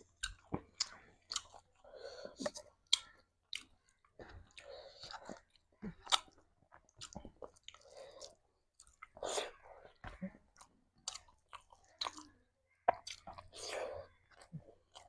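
A person eating: chewing with wet mouth noises, many short sharp lip smacks and clicks.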